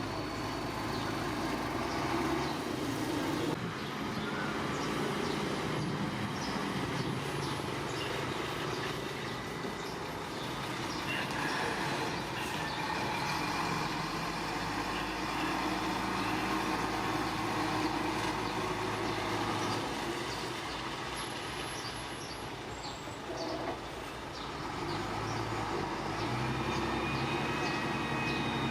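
Heavy diesel earthmoving machinery running steadily under load, with scattered small knocks. The engine dips a little near the end, then picks back up.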